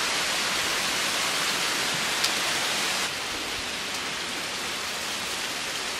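Hail falling onto a wet tiled balcony: a steady, dense hiss of pellets striking the tiles, with one sharp tick about two seconds in and the level easing slightly about three seconds in.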